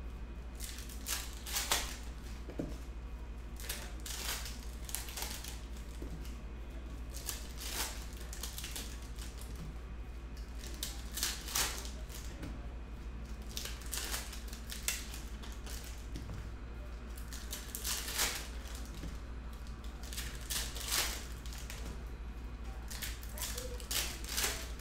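Foil 2021-22 Panini Elite Basketball pack wrappers being torn open and crinkled by hand, in short irregular bursts, with cards handled in between. Under it runs a steady low hum.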